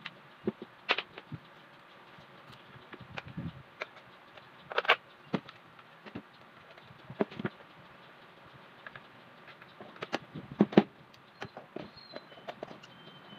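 Irregular clicks and knocks of a plastic ceiling-fan housing and metal pliers being handled on a workbench while the fan is being put back together, the loudest knock a little before the end.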